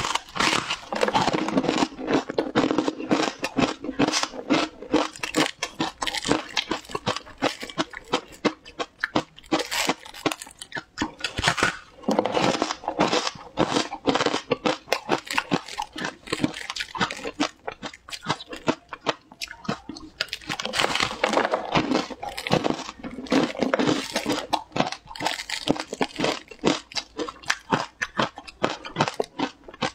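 Biting into and chewing a frozen block of matcha shaved ice close to a clip-on microphone: a dense, irregular run of crisp crunches throughout.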